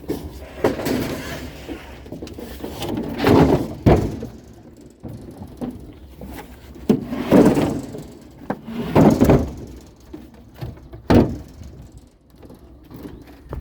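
A series of loud knocks and clattering bangs, a few seconds apart, as hard objects are handled and moved about.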